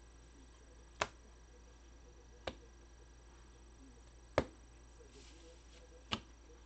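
Four sharp, separate taps or clicks, one to two seconds apart, over a low steady hum.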